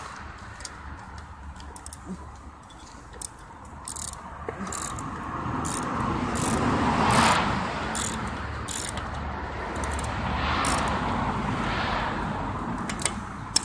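Road traffic swelling past twice, mixed with scattered light clicks and taps of hand tools working on the other side of a dirt bike's carburetor mounting.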